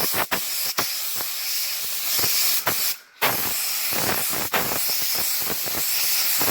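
Clear lacquer being sprayed onto freshly sanded car headlight lenses: a steady spraying hiss that stops briefly about three seconds in, then resumes.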